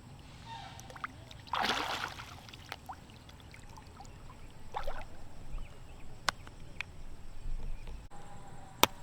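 Water sloshing and splashing in short swishes, the loudest about one and a half seconds in and another near the middle, with two sharp clicks later on.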